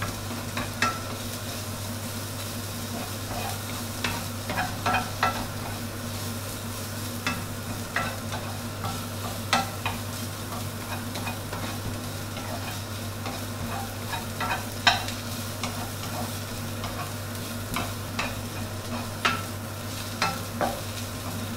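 Sliced shallots, diced fried tofu and chopped preserved radish sizzling in oil in a nonstick wok over medium heat, stirred with a wooden spatula that scrapes and taps the pan every second or so. A steady low hum runs underneath.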